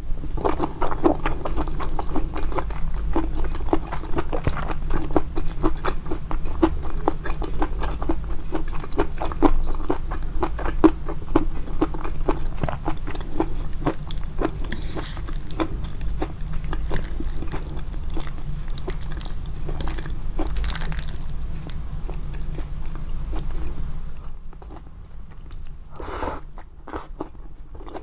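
Close-miked chewing of japchae glass noodles, boosted in the edit: a dense run of quick mouth clicks and smacks that thins out and goes quieter about 24 seconds in.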